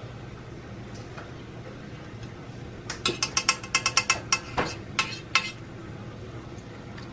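Light metal-on-metal clinks from a stainless steel candle-wax pouring pitcher with a thermometer probe in it: a quick, irregular run of clinks lasting about two and a half seconds, starting about three seconds in, over a steady low hum.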